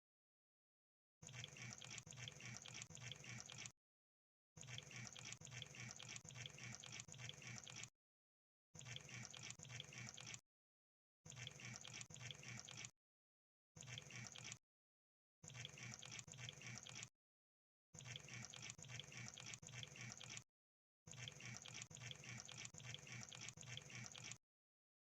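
Crab sound effect: a faint, wet crackling and clicking patter, repeated in nine bursts of one to three and a half seconds, each broken off by a short gap of dead silence.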